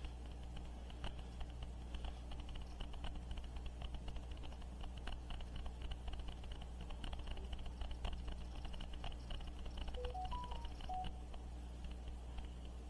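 Rapid, irregular light clicks and taps over a steady low hum, with a short run of four or five quick electronic beeps at different pitches about ten seconds in.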